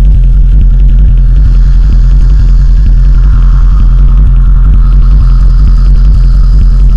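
Loud droning performance soundtrack: a heavy, steady low hum with a fast, fluttering crackle over it, and a higher tone joining about three seconds in.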